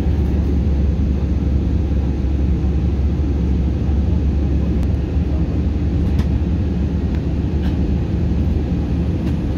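Airliner cabin noise on a landing approach: a steady, low rumble of engines and airflow heard from inside the cabin, with a few faint clicks.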